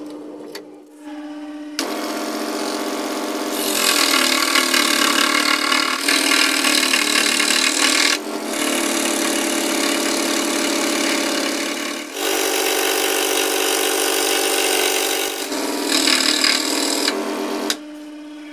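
Electric scroll saw with its blade cutting through a thick wooden board. A steady motor hum, then from about two seconds in a loud sawing noise that breaks off briefly twice and drops back to the hum near the end.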